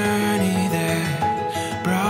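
Background music with held melodic notes.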